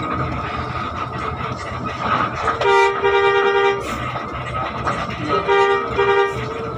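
Bus air horn sounding a long blast about three seconds in, then two shorter toots near the end, over the steady drone of the coach's engine heard from the cab.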